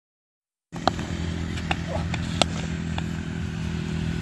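After a moment of silence, a steady low motor-like hum starts, with a few sharp clicks over it.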